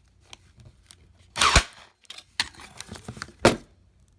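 Arrow E21 cordless electric staple gun firing twice, two sharp clacks about two seconds apart, with light clicks of handling between them. The gun is firing again after its jam was cleared.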